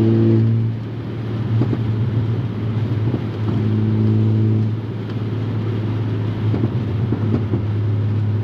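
Volkswagen MK6 Golf R's turbocharged four-cylinder engine and aftermarket turbo-back exhaust running under way, with a steady low drone. The engine note swells twice: at the start and again about halfway through.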